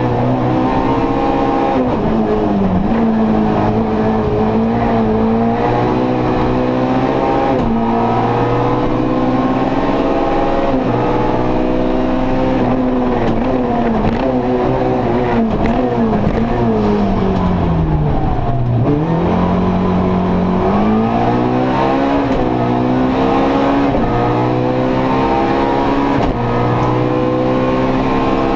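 Opel Kadett E 1.6 16V rally car's four-cylinder engine under hard acceleration, heard from inside the stripped cabin. The revs climb and drop again and again through the gears. About two-thirds of the way through, the revs fall right down for a slow corner, then pull back up.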